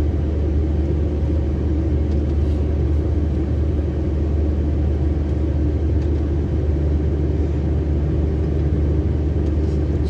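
Volvo FH 540 truck's diesel engine running steadily at low speed: a constant deep hum and rumble with no change in pitch.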